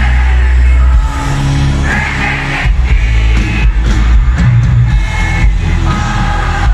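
Loud live pop-rock concert music with heavy bass and a singing voice.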